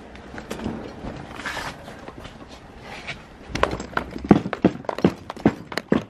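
Footsteps of someone in flip-flops going down concrete steps and onto a concrete path: a quiet shuffle, then a quick run of sharp slapping steps starting about three and a half seconds in.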